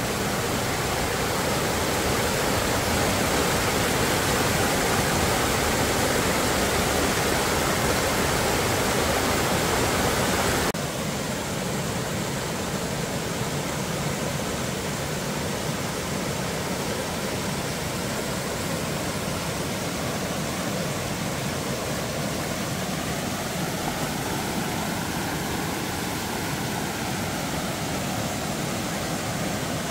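Steady rushing of a rocky mountain creek cascading over boulders. About ten seconds in it drops suddenly to a softer, closer rush of the same creek.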